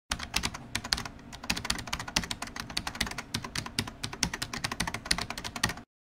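Fast, irregular clicking of keys being typed on a keyboard, many strokes a second, cutting off suddenly just before the end.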